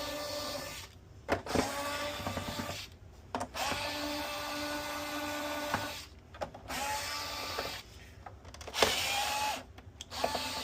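Small electric screwdriver motor whirring in repeated short runs, about five of them, each lasting one to two seconds with brief pauses between, as screws are driven out of a PS5 during teardown.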